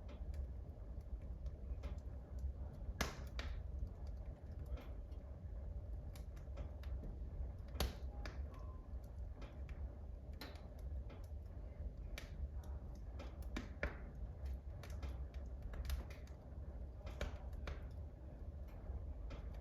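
Wood fire in a wood burner crackling, with irregular small pops and two louder pops about three and eight seconds in, over a low steady rumble.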